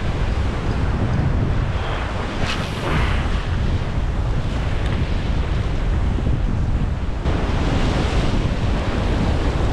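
Surf breaking and washing against rocks just below, with wind buffeting the microphone. The wash swells louder about two and a half seconds in and again around seven seconds in.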